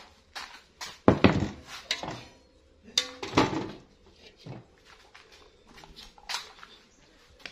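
Metal pots and kitchen utensils being handled: a series of clanks and knocks with short ringing, the loudest about a second in and again about three seconds in.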